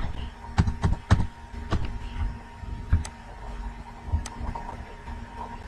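Computer keyboard keys and mouse buttons clicking: a quick run of sharp taps in the first couple of seconds, then a few single clicks spaced out, over a faint steady hum.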